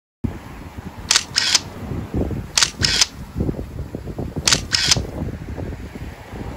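Camera shutter sound effect, three times about a second and a half apart, each a quick double click. Low rumbling background noise runs underneath.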